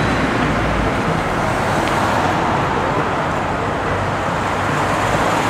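Busy city street traffic: cars passing through an intersection, a steady mix of engine and tyre noise.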